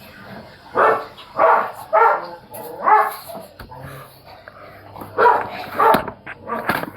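A dog barking in short, loud barks: a run of four, a pause, then a few more.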